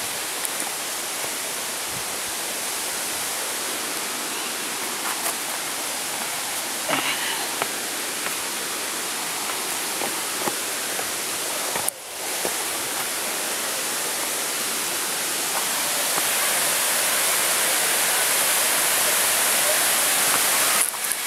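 Rushing water of a small mountain waterfall and stream pouring over rocks: a steady hiss that briefly drops out about halfway and grows louder near the end.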